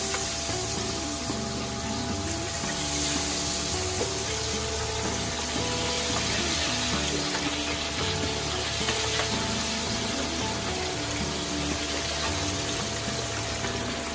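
Chicken wings deep-frying in a vat of hot oil: a steady sizzling and bubbling, with background music underneath.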